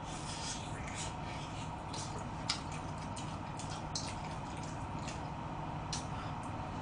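Wet chewing and lip-smacking from gnawing meat off a braised pig's trotter (jokbal): scattered short, sticky clicks about once a second over a steady low background hum.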